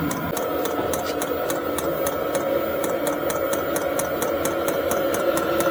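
MaXpeedingrods 5 kW 12 V diesel air heater running as its blower fan speeds up toward maximum: a steady hum with a few steady tones, slowly growing louder, and a fast, even ticking of about four ticks a second.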